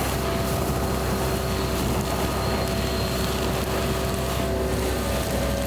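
An engine running steadily at a constant pitch, the kind of work machinery used to level soil at the tree base.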